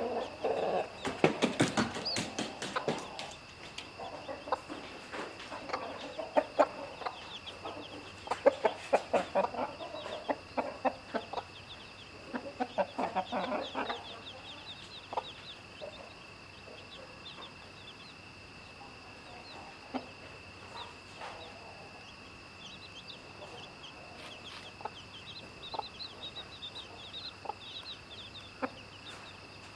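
Chickens clucking in quick bursts through the first half, then thinning out, with chicks peeping faintly and high in the later part.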